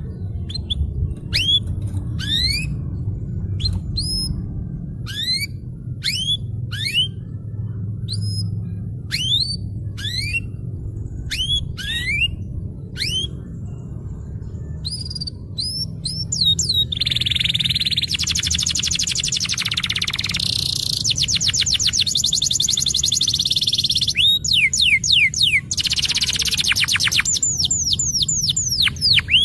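Domestic canary singing. First comes a string of separate rising whistled notes, roughly one a second, then from about halfway in fast rolling trills (the 'roll' prized in canary song), over a low steady background hum.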